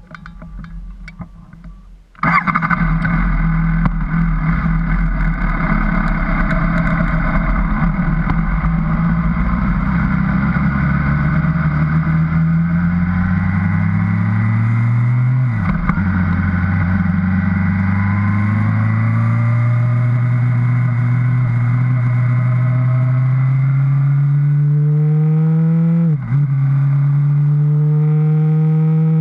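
Suzuki GSR750's inline-four engine comes in sharply about two seconds in, then pulls up through the gears: its pitch climbs slowly and drops briefly twice, about halfway through and near the end, as gears change.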